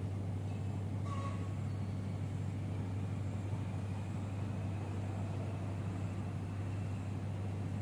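A steady low hum over a constant rumbling background noise, unchanging throughout.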